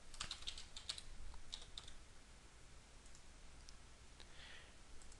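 Faint computer keyboard typing: a quick run of keystrokes over the first two seconds, then a couple of isolated clicks later on.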